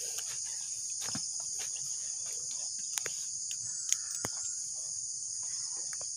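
Steady high-pitched insect chorus, like crickets, with a few sharp clicks scattered through it.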